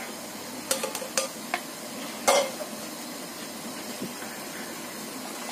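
A plastic spoon stirring mung beans in thickening brown-sugar syrup in a non-stick pan, with a few light scrapes and knocks against the pan, the loudest a little after two seconds in.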